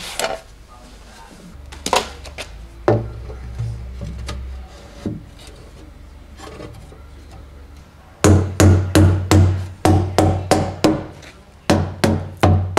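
Rubber mallet knocking a metal-framed wooden panel into a subwoofer enclosure: a few scattered knocks and handling sounds, then, about two-thirds of the way in, a quick run of sharp thudding taps, two to three a second. Background music plays underneath.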